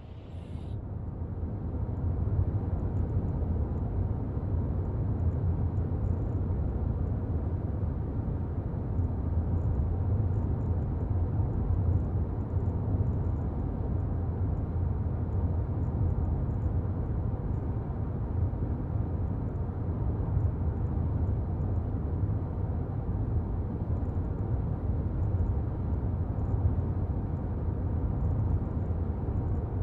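A car driving along: a steady low rumble of engine and tyre noise, fading in over the first two seconds and then holding even.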